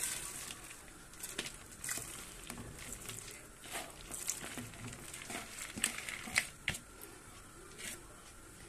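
Ground fat tipped from a plastic bowl into a pot of hot water and oil and raked out by hand: soft scattered rustles and patters, with a few sharper clicks about four and six to seven seconds in.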